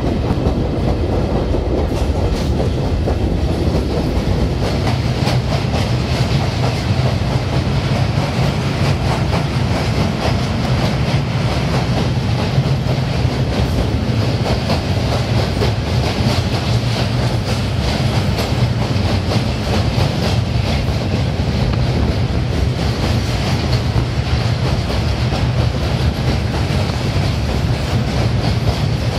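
Train running across a steel truss railway bridge, heard at an open carriage door: a loud, steady rumble with the clatter of wheels over the rails.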